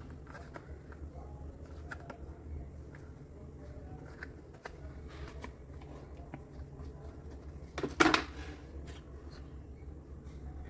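Keys of a Redragon K596 mechanical keyboard with linear red switches being pressed, irregular clicky clatter over a low hum, with one louder knock about eight seconds in.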